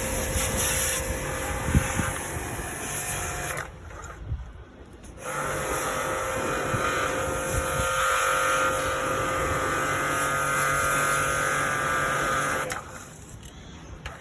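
Small electric motor running with a steady whine, stopping about four seconds in, starting again a second and a half later, and stopping again near the end.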